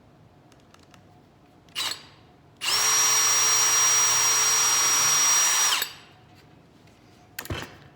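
Power drill with a small bit running at a steady speed for about three seconds, boring a shallow pilot hole in wood for a brad nail. A short noise comes about two seconds in, and a knock near the end.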